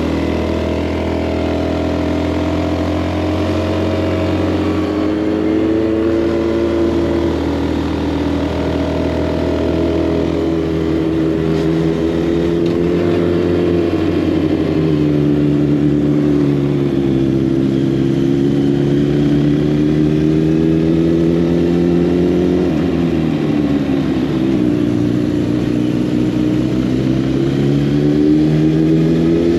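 Honda Monkey's small single-cylinder four-stroke engine running under way, its pitch rising and falling with throttle and gear changes, with a marked dip about halfway through and again near the end.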